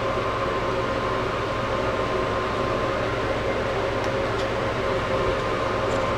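Steady machine hum with a low drone and a couple of steady tones, unchanging throughout, with two faint ticks about four seconds in.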